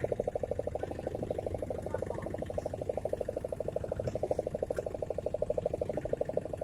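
Boat engine running, a fast, steady, even pulsing.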